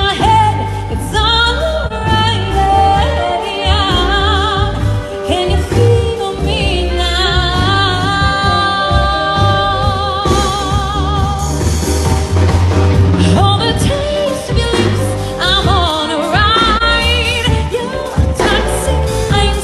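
Song with a singing voice over a steady bass accompaniment, the held notes sung with a wavering vibrato.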